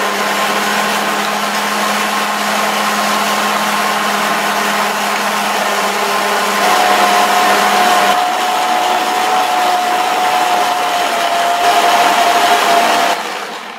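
Electric stand mixer running fast with its wire whisk, beating a creamed egg-and-powdered-sugar mixture as room-temperature butter is added a little at a time. The motor's hum shifts in pitch about seven seconds in, and the mixer stops near the end.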